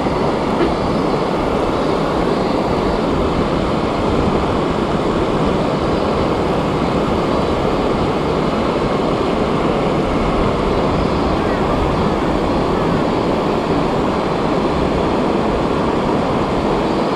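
Steady rushing of a shallow river current flowing over rocks, heard close to the water.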